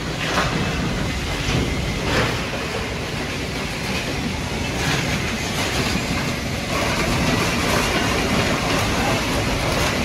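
Machinery of a refrigerator recycling line running: a steady industrial clatter with a few short knocks.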